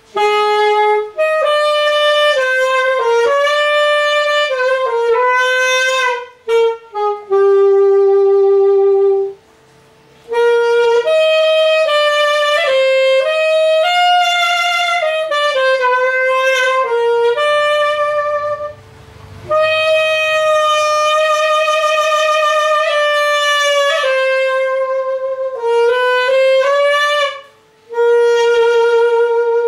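Yamaha YAS-280 alto saxophone with its stock 4C mouthpiece, played solo: a slow melody of held notes in phrases, with short breaks for breath. There is a long low held note about eight seconds in.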